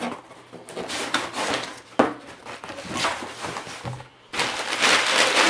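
Crumpled kraft packing paper rustling and crinkling as it is pulled around inside a cardboard shipping box, with a sharp knock about two seconds in and louder rustling in the last second or so.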